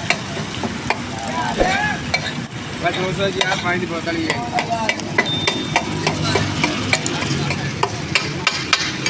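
Metal spatula scraping and clinking over and over on a large tawa griddle while egg mixture fries and sizzles on it.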